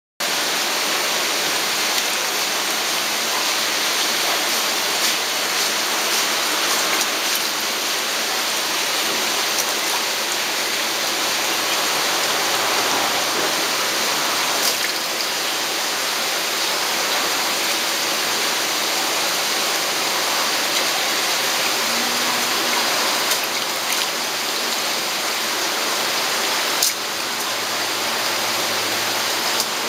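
Water pouring steadily from an inlet pipe into an aquarium tank, splashing on the surface in an even rushing noise.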